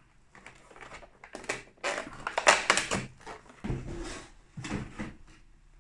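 Cardboard advent calendar being opened by hand: a run of crackling, rustling and tearing of card, loudest about two to three seconds in.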